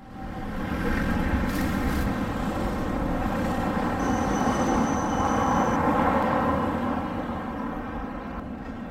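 Electric tram running: a steady rumble of wheels on rails that starts suddenly, with a thin high whine for a couple of seconds around the middle and the level easing a little near the end.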